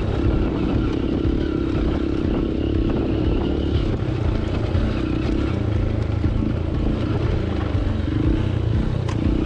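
Hero Impulse motorcycle's single-cylinder engine running steadily on an off-road trail.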